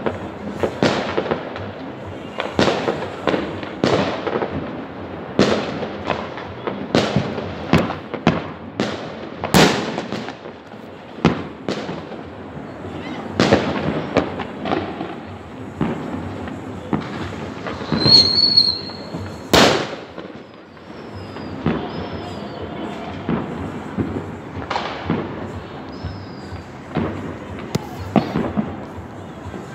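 Fireworks and firecrackers going off across a city, a near-continuous string of bangs and crackles. Two sharp cracks stand out, about ten seconds in and again just before twenty seconds. A brief high whistle comes about eighteen seconds in.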